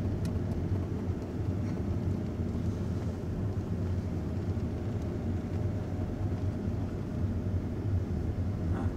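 Steady low rumble of an engine and road noise from a vehicle driving slowly close behind a small group of racing cyclists.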